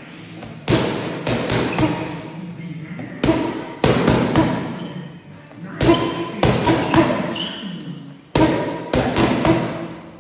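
Boxing punches landing in four-punch combinations, one combination about every two and a half seconds, each hit a sharp thud.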